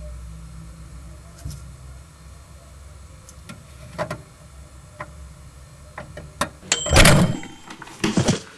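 Microwave oven running with a low hum and a few scattered clicks, then a short beep and a loud clunk as the door latch releases and the door swings open, with a second clatter about a second later.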